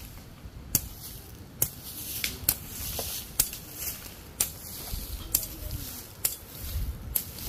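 Sharp knocks at an even pace, about one a second, with a steady hiss between them.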